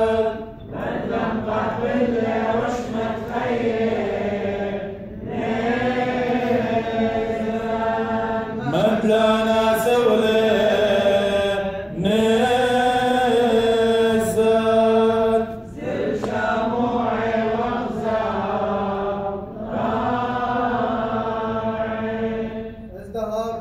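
Men's voices chanting the Syriac liturgy in long held phrases of a few seconds each, with short pauses between them.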